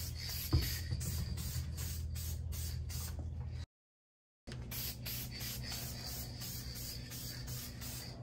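Aerosol spray can of adhesion promoter hissing in repeated short passes over plastic mirror caps. It cuts off about three and a half seconds in and starts again for the next coat a second later.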